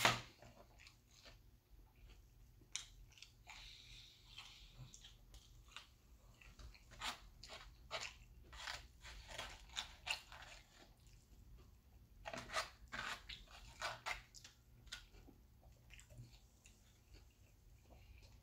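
Close-up chewing of crispy batter-fried seafood, with short crackly crunches coming in irregular spells.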